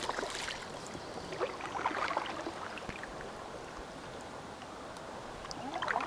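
Water splashing and lapping around a canoe as a hooked smallmouth bass fights at the surface, in irregular bursts.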